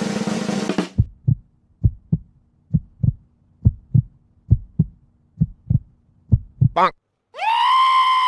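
Heartbeat sound effect used as a suspense cue: seven double thumps, lub-dub, about one pair a second, after a drum roll cuts off just under a second in. Near the end a short rising sweep leads into a held, pitched note.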